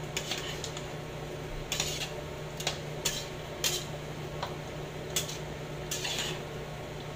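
Cooking spoon stirring a thick coconut-milk and taro stew in a pot, scraping and knocking against the pot about once a second, over a steady low hum.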